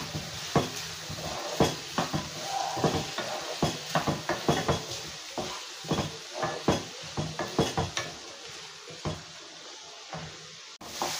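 Wooden spatula scraping and knocking against a kadai, stirring chopped onions and garlic as they sauté, over a steady sizzle of frying. The stirring strokes thin out near the end.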